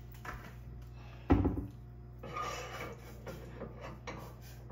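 A single solid knock about a second in, as something is set down or bumped on the kitchen counter or stove, followed by faint handling and clinking sounds over a low steady hum.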